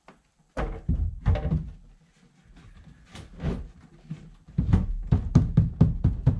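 Boat seating box being set into the deck and shoved into place, knocking and thudding against the boat: a few separate thuds, then a quick run of knocks near the end.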